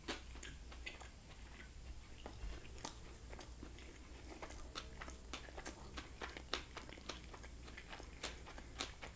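Close-miked chewing of a blackened mahi mahi fish taco with cabbage slaw in a flour tortilla: faint, with many small scattered mouth clicks and light crunches.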